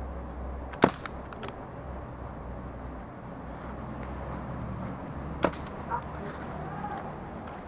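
Tokyo Marui MK23 gas airsoft pistol firing twice: a sharp crack about a second in and another about five and a half seconds in, with a couple of faint clicks just after the first.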